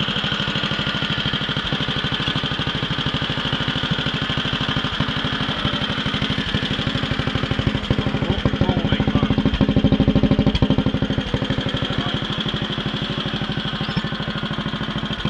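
Allen Roper RT13 garden tractor's engine running with an even, rapid firing beat. It grows louder about eight seconds in and settles back a few seconds later.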